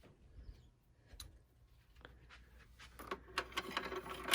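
Faint clicks and light rustling of small objects being handled, sparse at first and busier near the end, over a faint low hum.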